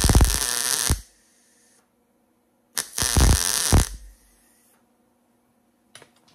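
MIG welder arc crackling and spitting in two bursts of about a second each, tack-welding a nut onto a broken fender bolt stud so it can be turned out.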